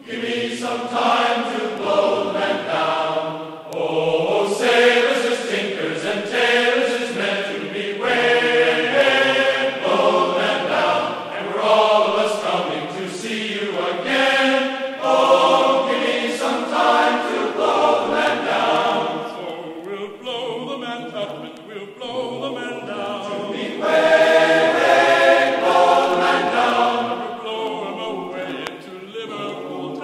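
A sea shanty sung by a choir of voices, played as background music.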